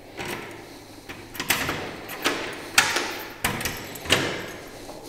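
Door opened by its metal lever handle: several sharp clicks and knocks from the handle and latch, each ringing briefly, about half a second apart.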